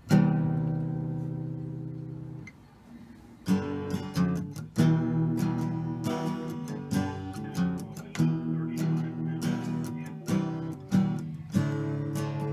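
Background music of a strummed acoustic guitar: a chord rings out and fades at the start, then after a brief lull the rhythmic strumming resumes.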